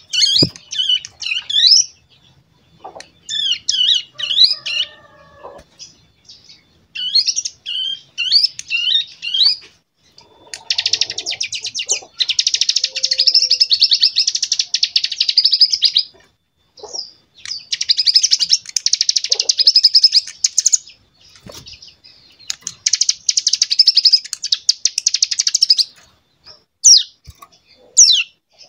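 A young cigun (ciblek gunung, a prinia) singing: short twittering phrases, then three long, rapid buzzing trills of several seconds each, the cicada-like 'bren' rattle that it is learning to copy from recordings, followed by a few short high notes near the end.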